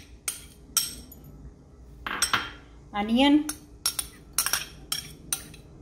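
Metal spoon scraping and tapping inside a small ceramic bowl, giving repeated sharp clinks, closer together in the second half, as chopped vegetables are knocked out of it.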